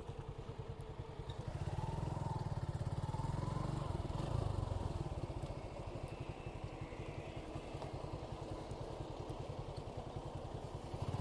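Suzuki Gixxer 155's single-cylinder engine running steadily, an even, fast pulsing exhaust note that grows a little louder about a second and a half in.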